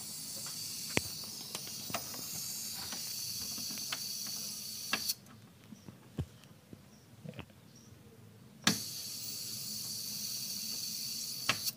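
High-pitched hiss from inside a Polytron uSlim CRT television as it is switched on. It runs about five seconds and cuts off suddenly, then starts again with a click about nine seconds in and hisses for another three seconds. The hiss is a symptom of a fault in which the set's B+ supply voltage drops, the indicator lamp goes out and no picture appears.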